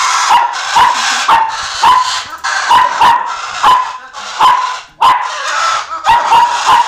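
Small puppy yapping repeatedly, about two sharp, high yaps a second, while it paws at a parrot's cage.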